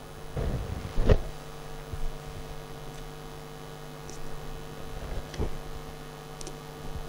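Steady electrical mains hum, with a few short knocks and rustles of a paper sheet being pressed and pinned onto a board. The loudest knock comes about a second in.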